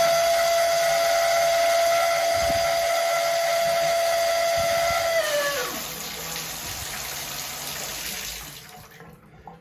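Shower mixing valve screeching on the hot side: a loud, steady high whistle over the rushing water, which drops in pitch and fades out about five seconds in, leaving the water running until it stops near the end. The squeal persists even after a new cartridge and bleeding air from the line.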